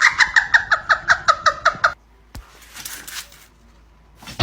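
A fast run of high-pitched rhythmic calls, about five a second, like a giggle or animal chatter, cutting off about two seconds in; a faint click and rustle follow.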